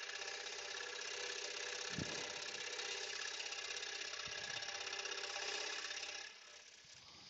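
Scroll saw running, its blade stroking rapidly up and down through a small block of wood, with a steady fast chatter. A couple of faint knocks come partway through, and the sound drops away about six seconds in.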